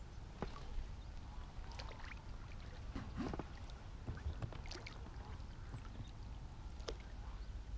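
A live-bait float rig dropping onto pond water, followed by scattered small splashes and clicks as the float settles and the pole rod is handled, over a steady low rumble.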